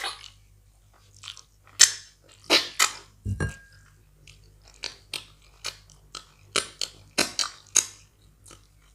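Close-miked eating sounds from a mouthful of wheat fufu and egusi soup: an irregular string of wet smacks and clicks of chewing. One dull knock comes about three seconds in.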